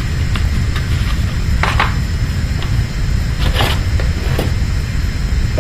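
Packaging and papers being handled: a few short rustles and light clicks, the clearest about a third of the way in and past the middle, over a steady low rumble.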